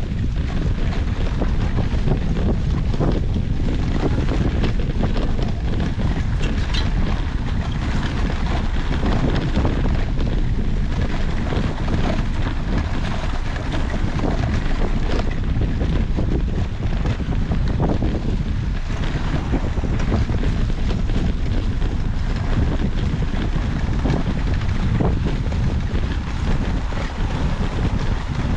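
Wind buffeting the microphone of a camera carried on a moving cyclocross bike: a steady low rumble with scattered small clicks and rattles.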